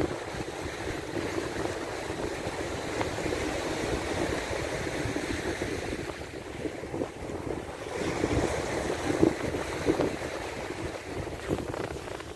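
Small ocean waves breaking and washing up on the shore in two swells, with wind rumbling on the microphone.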